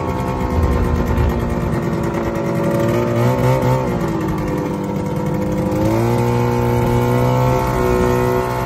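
Ski-Doo snowmobile engine running under way, heard from the driver's seat. The engine note eases off through the middle, then picks up again at about six seconds and holds steady.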